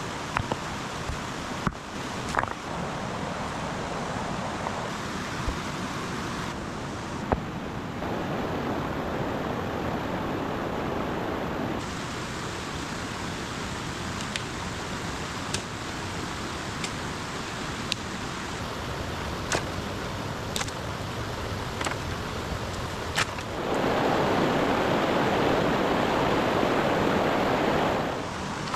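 Running stream water, a steady rushing noise whose level and tone change abruptly several times and which is loudest in the last few seconds, with scattered sharp clicks over it.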